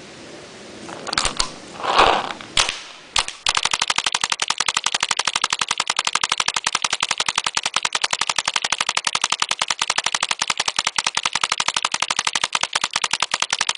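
BT-4 ERC paintball gun firing in a rapid, unbroken string at about 13 balls per second. It starts about three and a half seconds in, after a couple of single shots.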